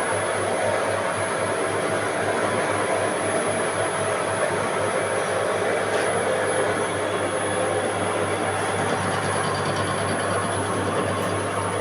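A machine tool running steadily while machining a 316 stainless steel ring: an even machining noise over a steady low hum, with a thin high whine throughout.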